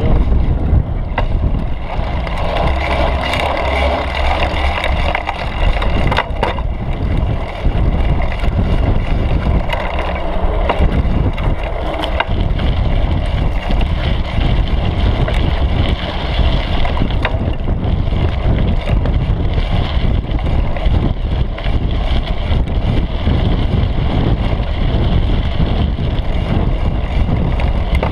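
Mountain bike rolling along a dirt trail, heard from a camera on the seat post: steady rumble of wind buffeting the microphone and tyres on the ground, with constant small rattles and knocks from the bike over the bumps.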